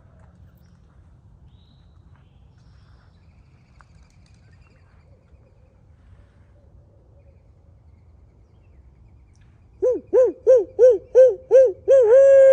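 Owl hooting: a quick run of about eight short hoots, then a long drawn-out final hoot that falls in pitch at its end.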